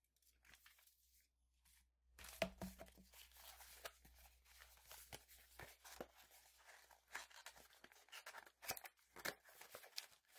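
Faint handling of a small cardboard box being opened, with cardboard flaps and plastic-wrapped contents rustling and crinkling. It starts about two seconds in with a sharp snap and goes on as a busy run of small clicks and scrapes.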